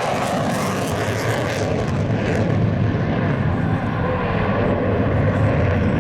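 Jet noise from an F-35C's single F135 afterburning turbofan in flight: a steady, loud rumble. Its high hiss fades after about two seconds while the deep low rumble grows.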